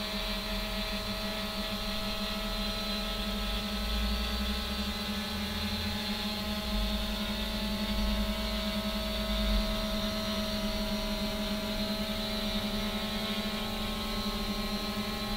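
3DR Iris+ quadcopter's four brushless motors and propellers humming steadily in flight, a constant multi-tone drone with a higher hiss on top. A low rumble swells and fades in the middle.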